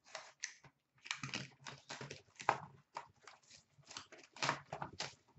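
Plastic shrink wrap being torn and peeled off a sealed box of hockey cards: an irregular run of short crinkling, crackling rustles, with the cardboard box being handled.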